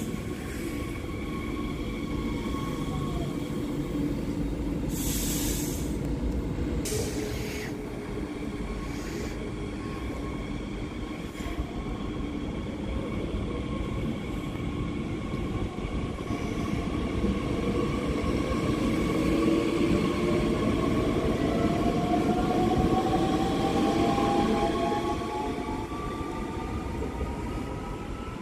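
Bombardier Talent 2 electric multiple unit pulling out of the station, its wheels and running gear rumbling on the rails. There are two short hisses about five and seven seconds in, and in the second half the traction motors' whine rises steadily in pitch as it accelerates away.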